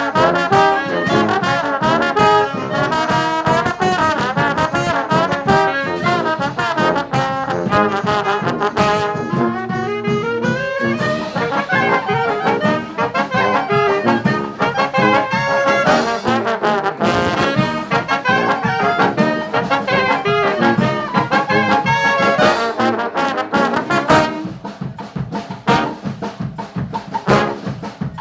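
Street brass band playing live: trumpets and trombones in fast, busy lines over drums. About 24 seconds in the horns drop back and the drums carry on more quietly.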